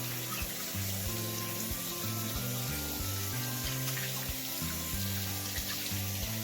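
Background music with a steady beat and a stepping bass line, over a steady hiss.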